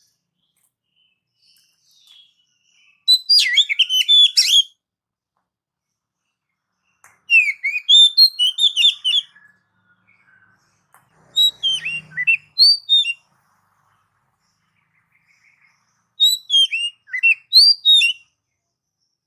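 Oriental magpie-robin (kacer) singing loudly: four bursts of rapid, varied whistled notes, each about two seconds long, separated by short silent pauses.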